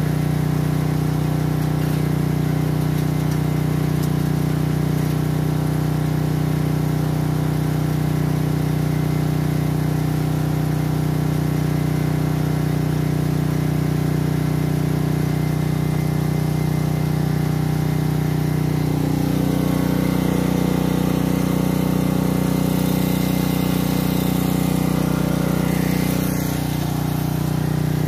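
An engine running steadily at idle, with an even, unbroken hum. About two-thirds of the way through, its note shifts slightly and grows a little stronger, as if it has taken on load.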